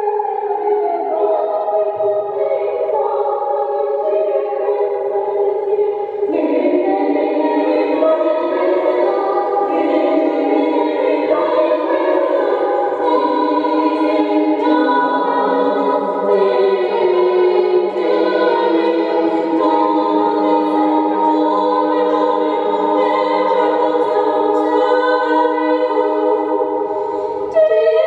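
A small group of choir singers singing together in long, held notes. The sound jumps abruptly about six seconds in and again near the end.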